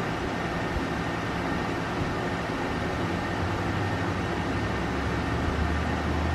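Steady background rumble and hiss, like a ventilation unit or distant traffic, with a low hum that swells about halfway through and eases near the end.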